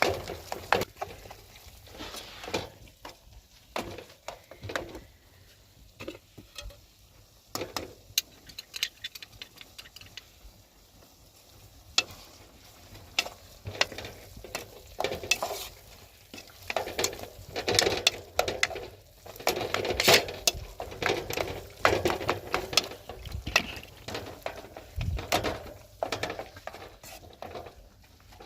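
A cooking utensil clinking, knocking and scraping irregularly against a pot, as in stirring food over a fire, busier in the second half.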